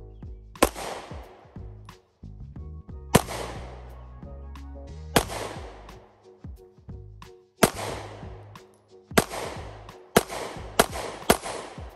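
About eight shots from a Taurus G3c compact 9mm pistol, fired at irregular intervals, each one ringing out briefly after the crack. The last three come quicker, about half a second apart.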